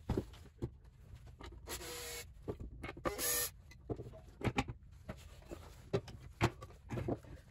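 Wooden model parts being handled on a workbench: scattered light wooden knocks and clicks, with two brief whirring sounds of about half a second each, around two and three seconds in.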